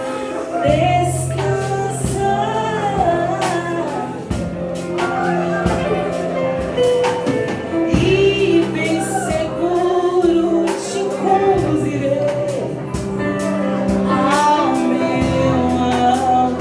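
Gospel worship song: singing over band accompaniment with sustained bass notes and a steady percussion beat.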